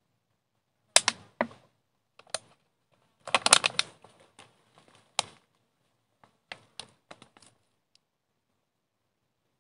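Irregular footsteps scuffing and clicking on a hiking trail, with a quick cluster of scrapes about three and a half seconds in.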